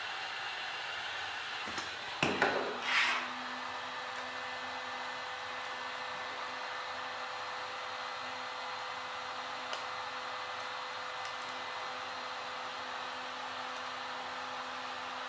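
Electric heat gun blowing steadily, softening the screen adhesive. About two seconds in there are a few brief, loud handling noises, after which a low steady hum joins the blower.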